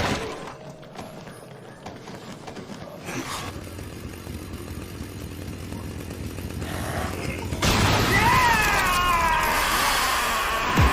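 Anime sound effects of a chainsaw transformation: a sharp hit, then a low rumbling build-up that slowly gets louder. About seven and a half seconds in, a loud burst of whining, gliding chainsaw revving.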